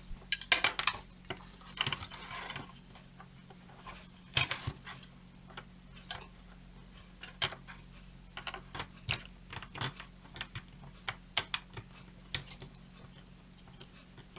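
Irregular light clicks, taps and clatter of small electronic parts and tools being handled on a workbench.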